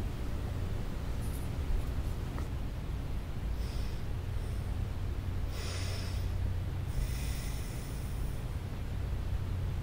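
A woman sniffling: three short, hissy breaths through the nose, about three and a half, six and seven seconds in, over a steady low hum.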